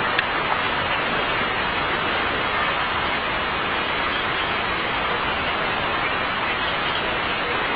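Steady, even hiss of noise at a constant level, with a faint click near the start.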